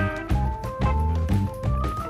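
Background instrumental music with held notes over a repeating bass line.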